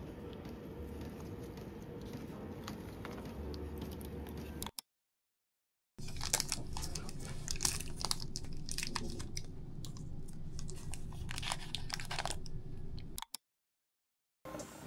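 Close crunching and chewing of a crisp snack, dense crackly clicks lasting about seven seconds. Before it comes a steady low room hum with faint handling, cut off by a second of silence; another short silence follows.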